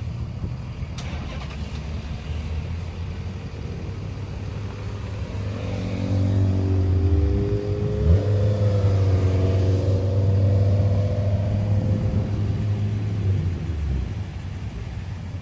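Car engines at low revs as cars roll slowly past, a deep steady hum. It grows louder about six seconds in, dips briefly in pitch near eight seconds, and fades near the end.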